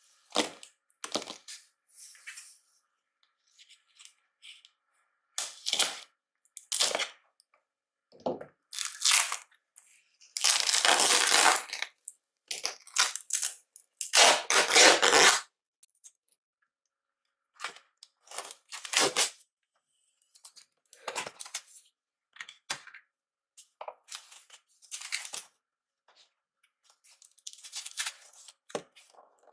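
Plastic packing tape being ripped off a cardboard box in long pulls, between shorter scrapes and knocks of the cardboard being handled, with quiet gaps between.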